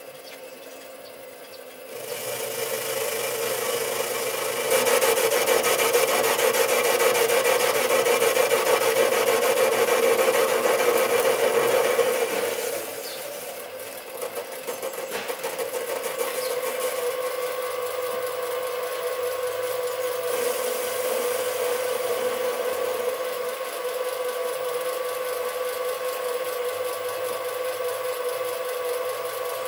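Sieg SC3 mini lathe running with a steady hum while the tool faces the end of a metal workpiece, the cut adding a scraping rasp. The cutting noise builds about two and five seconds in and eases off about halfway through.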